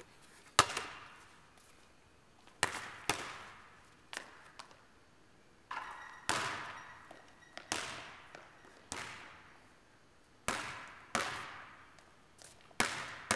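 A basketball striking the backboard, rim and court floor: about a dozen sharp hits at uneven intervals, each followed by a long echo in a large gym hall.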